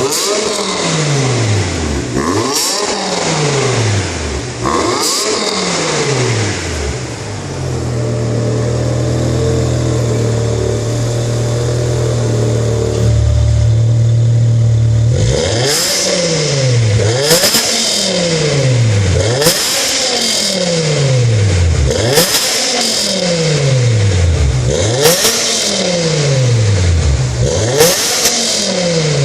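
BMW E63 M6's V10 engine through an aftermarket PSD valved exhaust, revved in repeated throttle blips, each rev falling away again, about one every two seconds. In the middle the revs are held steady for about seven seconds. Then the blips resume, louder, with sharp cracks at the top of several revs.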